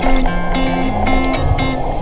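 Background music: a melody of short held notes over a bass line, with a steady beat.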